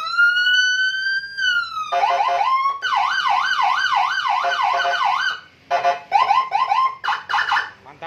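Custom police-escort electronic siren on a Honda PCX scooter being tested through its tones: a long slow rising-then-falling wail, then a fast warbling yelp at about four cycles a second, then, after a short break, quick choppy tone bursts.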